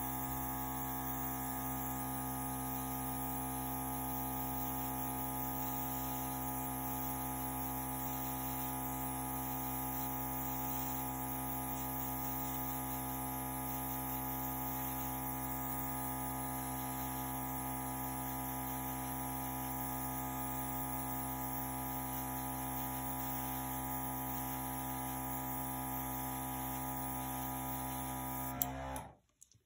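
Small airbrush compressor running steadily with a constant electric hum, air hissing from the airbrush as it blows over the wet acrylic paint; it cuts off suddenly near the end.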